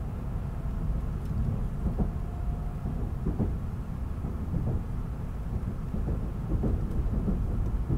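Steady low rumble of a Shinkansen running along the line, heard inside the passenger cabin, with a few faint knocks and creaks from the car.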